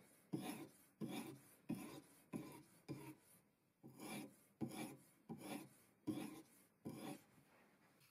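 Sharpening stone on a guided-angle knife sharpener stroked along a bowie knife's steel edge: about ten rasping strokes, a little more than one a second, which stop near the end.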